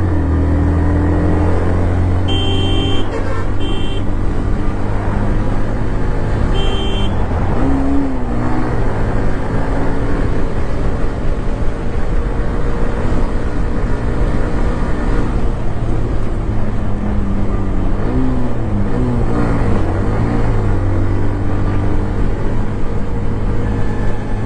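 Hero Xtreme 125R's single-cylinder engine running under way in traffic, its pitch rising and falling with the throttle. Three short high beeps sound in the first seven seconds.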